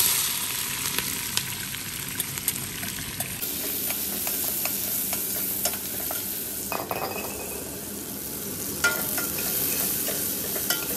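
Sliced onions tipped into hot oil in a stainless steel pot, hitting the oil with a sudden loud sizzle, then frying steadily while a metal spoon stirs them, scraping and clinking against the pot.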